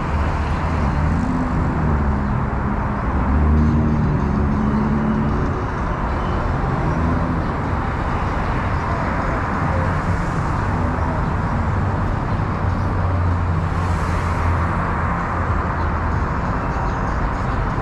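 Road traffic noise from a moving car: steady tyre and road rumble, with the engine of a passing vehicle rising out of it for a few seconds about a second in.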